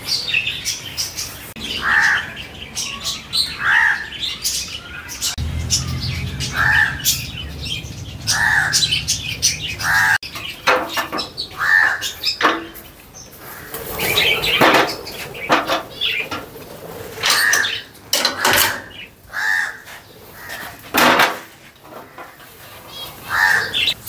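Caged parrots in an aviary calling with short repeated squawks, about one every couple of seconds, over wings flapping and rustling clatter in the cage.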